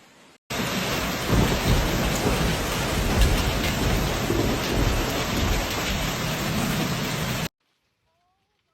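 Heavy rain pouring down in a thunderstorm: a dense, steady hiss with a heavy low rumble under it. It starts abruptly about half a second in and cuts off abruptly near the end.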